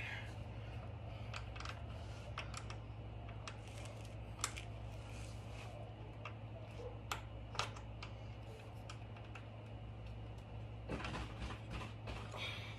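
Scattered light metallic clicks and ticks of a hand tool working the battery terminal bolts on a motorcycle, a few sharper ones standing out, over a steady low hum.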